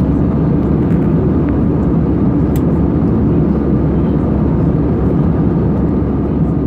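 Airbus A320 passenger cabin at cruise: the steady, even rush of the jet engines and the airflow over the fuselage, heard from a window seat.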